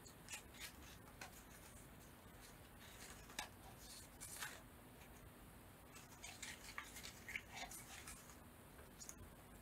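Faint, irregular rustles and small clicks of paper cut-outs being handled and pulled apart.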